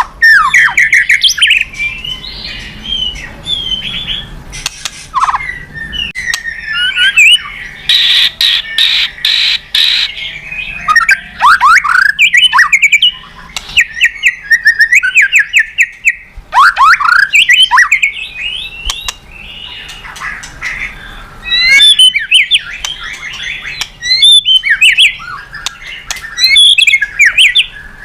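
White-rumped shama singing a long, varied song. Bursts of rapid sweeping whistles, fast trills and harsh chattering notes are broken by short pauses.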